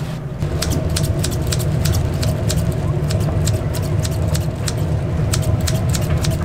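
Steady low rumble of kitchen equipment, with a faint steady hum, overlaid by irregular light clicks and taps a few times a second.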